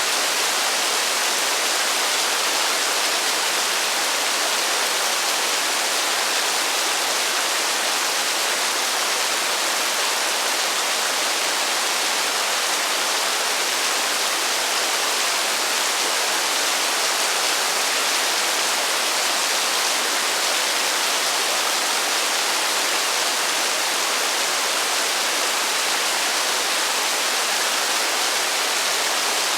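Heavy rain falling steadily with no thunder: an even, unbroken hiss.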